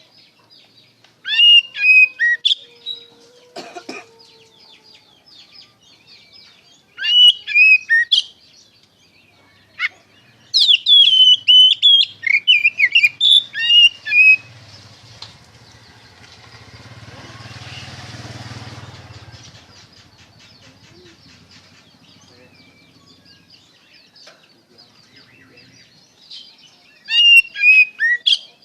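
Oriental magpie-robin singing in loud bursts of rapid, varied whistled phrases, separated by pauses. Midway, a low rumbling noise swells up and fades away.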